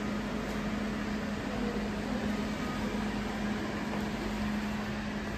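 Steady low hum over a constant hiss of indoor background noise.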